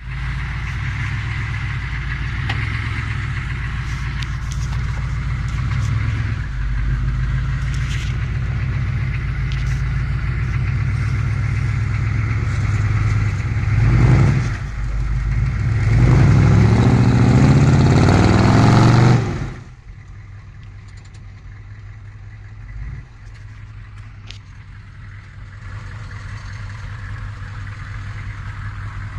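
Square-body Chevrolet Blazer (GMC Jimmy) engine under load as the truck climbs a muddy bank off-road, revving up twice with rising pitch. About two-thirds of the way through it drops suddenly to a much quieter steady idle.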